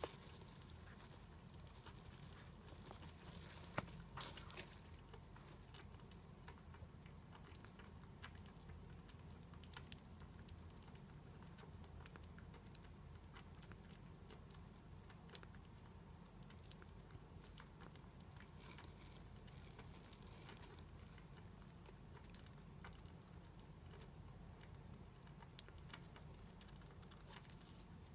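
Near silence with faint, scattered small clicks and scratches from a pet hedgehog shuffling around inside a leather shoe on a hard floor, its claws and quills rubbing leather and floor, with one sharper click about four seconds in, over a low steady hum.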